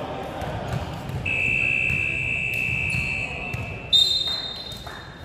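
Signal tones in a basketball hall. A steady high tone is held for about two seconds, then a higher tone starts sharply about four seconds in and fades away.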